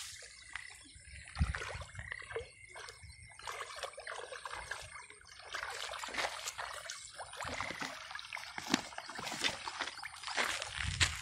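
Light, irregular splashing and trickling of water at a pond's surface.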